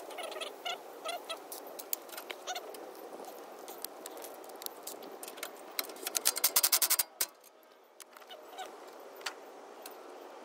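A rapid run of about a dozen sharp clicks lasting under a second, about six seconds in, from tools at work on the car's front suspension. Scattered short chirps and small clicks come before it.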